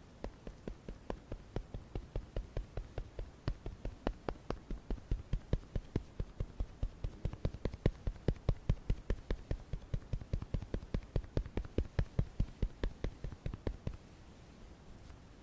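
Makeup being patted on in quick, even taps, about five a second, that stop near the end.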